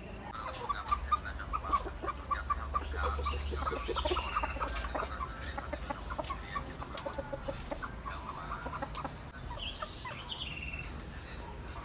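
Chickens clucking: a long run of short clucks in quick succession, with a few higher chirps mixed in.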